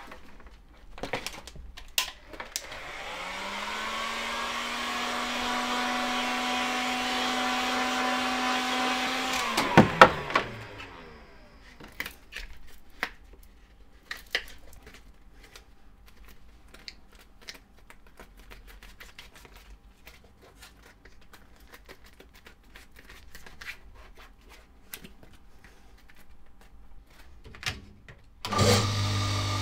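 Handheld electric heat gun switched on, its fan whining up to speed and blowing steadily for about seven seconds, then switched off and winding down. Light clicks and handling noises follow, and near the end a footbed grinding machine starts with a loud steady hum.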